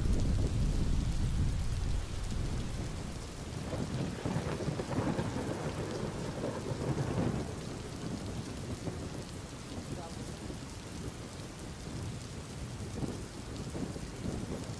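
Thunderstorm noise: a deep rumble in the first couple of seconds that eases off, then a steady rushing hiss that swells and fades in gusts.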